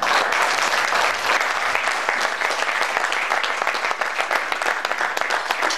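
Audience applauding: a steady, dense stretch of many people clapping.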